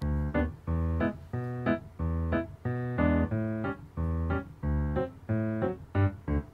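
Background music: a keyboard tune with chords and bass notes on a steady beat.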